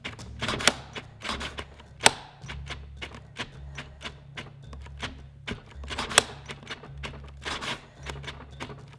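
Ryobi and Milwaukee cordless drills locked chuck to chuck, their triggers clicked over and over in irregular rapid clicks, with a low motor hum that comes and goes. Both drills are stalled against each other and cutting out on their thermal switches; the repeated trigger clicks bypass the cut-off.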